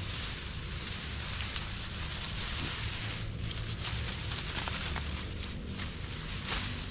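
Long leaves of a tall lemongrass-type grass clump rustling as they are grabbed and torn off by hand. A few sharper crackles and snaps come from about three seconds in.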